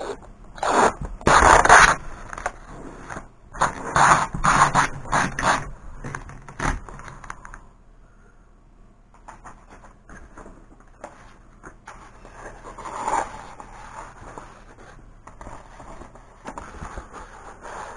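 Scraping and rustling of decal sheets being handled, in two loud clusters in the first six seconds with a sharp knock just after, then quieter scattered scraping.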